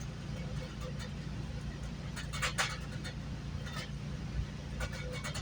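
Steady low rumble of a GO Transit commuter train running along the line, heard from inside the coach, with scattered sharp clicks and rattles, the loudest a pair about two and a half seconds in.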